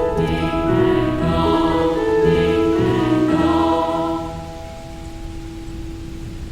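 Slow, sustained music with choir-like voices holding chords. About four seconds in, it thins to one long held low note.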